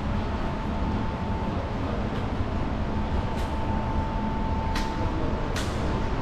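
Steady low rumble with a thin high hum, and three sharp clicks in the second half.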